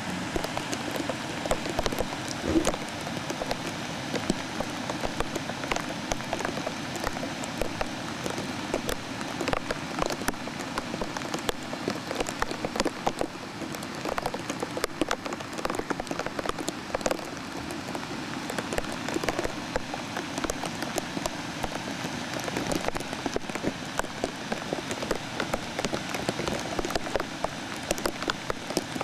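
Steady rain falling, with many close drops ticking irregularly over an even rushing noise.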